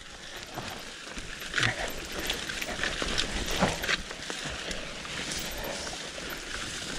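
Mountain bike riding down a wet, muddy enduro trail: steady tyre and rolling noise over the dirt, with a few sharp knocks and rattles from the bike over rough ground.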